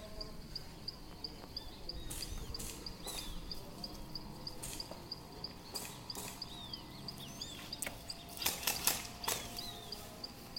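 Outdoor wildlife: a high chirp repeating steadily about three times a second, with short falling bird calls over it. A few sharp snaps are scattered through, several close together near the end.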